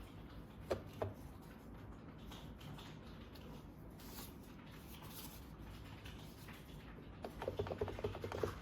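Small plastic toy parts being handled: two sharp clicks about a second in, then a quick run of rattling clicks near the end.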